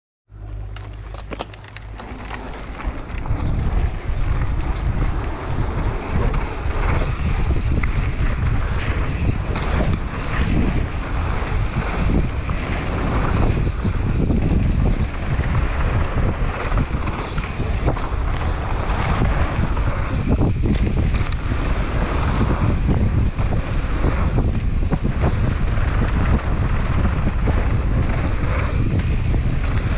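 Wind rushing over a helmet-mounted camera's microphone as a mountain bike rides fast down a dirt trail, with a steady rumble and many small knocks from the tyres and bike over the rough ground. It is quieter for the first few seconds, then loud and steady once the bike is moving.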